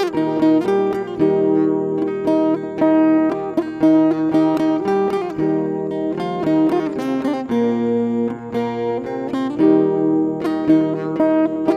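Background music: plucked acoustic guitar playing a quick run of notes.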